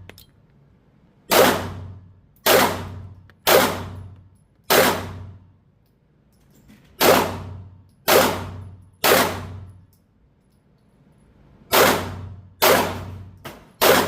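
About ten pistol shots in three quick strings (four, then three, then three), each with a ringing decay in an indoor range.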